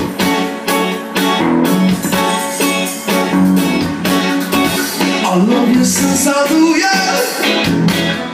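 Live band music from a concert broadcast, with bass, guitar, a steady drum beat and singing coming in after the middle, played loud through a home speaker system driven by QSC GX5 power amplifiers.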